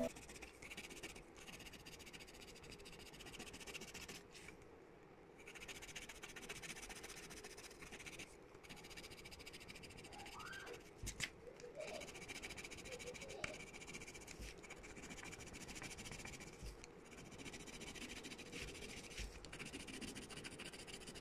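Faint, steady scratching of a coloured pencil shading on paper, with a few faint short calls in the background about halfway through.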